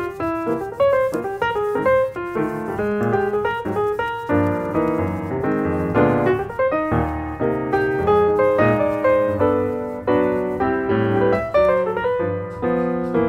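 Background piano music: a melody played over chords with a lively rhythm.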